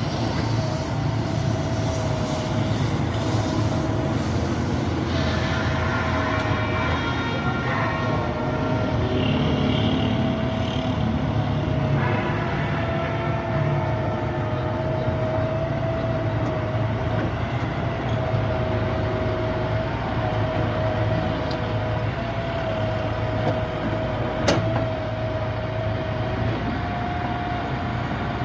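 Hitachi EX200-1 excavator's diesel engine running steadily, a dense low rumble with a steady whine over it that wavers slightly in pitch. A single sharp click sounds near the end.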